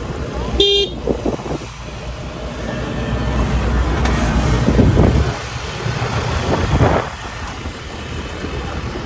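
Motor vehicle driving on a road with a steady low rumble. A short horn toot sounds about a second in.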